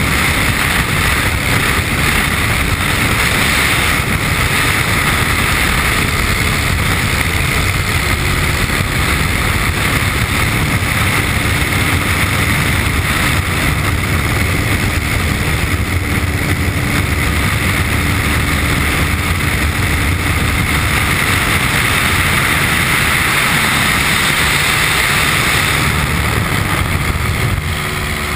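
Piper Cub's engine and propeller running steadily at high power, heard inside the cockpit, with air rushing through the open cabin. The sound dips slightly near the end.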